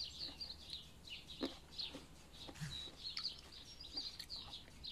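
Small birds chirping in quick short calls all through, with a few soft clicks and taps from grapes being picked off the stem over a plate.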